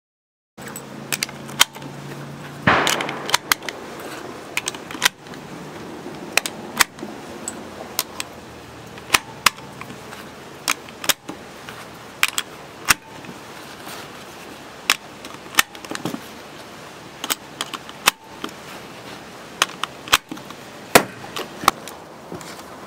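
Irregular sharp clicks and clacks of hard plastic and metal being handled: a hard gun case and the parts of a Colt AR-15 A2 rifle being unpacked. There is a short clattering rustle about three seconds in, over a steady low background noise.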